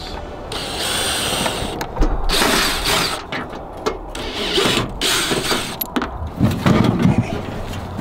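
Cordless drill/driver backing out the screws of a plastic rooftop RV air-conditioner shroud, whirring in three short runs. Low knocks come near the end as the shroud is handled.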